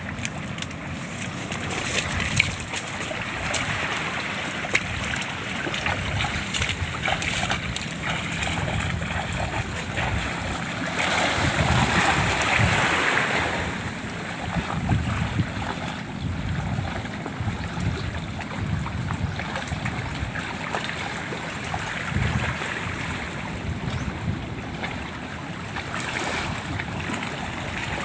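Wind buffeting the microphone over the wash of shallow sea water, with splashing from someone wading through it. A louder rushing stretch comes about twelve seconds in.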